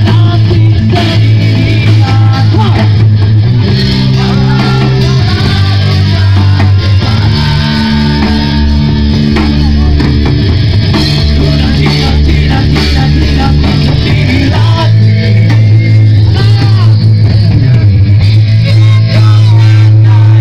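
A rock band playing live and loud: electric guitars, bass guitar and drum kit, with a male lead vocal over them.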